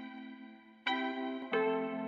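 Background music: soft keyboard chords that fade, with a fresh chord struck just under a second in and another about halfway through.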